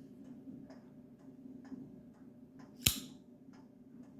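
Assisted-opening pocket knife snapping open with one sharp metallic click about three seconds in, among a few faint lighter clicks of the blade and handle.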